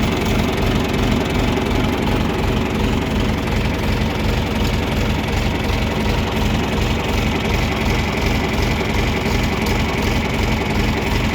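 A tractor engine idling steadily with an even low throb.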